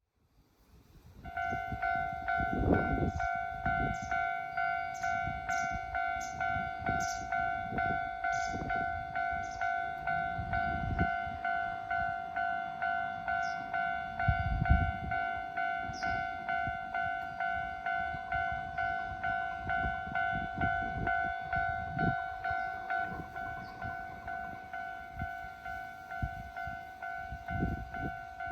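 Japanese railway level-crossing alarm ringing: a rapid, evenly repeating electronic ding that starts about a second in and keeps going. Irregular low rumbles and thumps sound underneath it.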